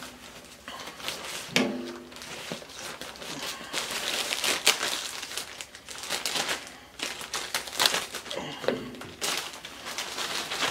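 Plastic mailer bag crinkling and rustling as it is cut and pulled open by hand, with irregular sharp crackles.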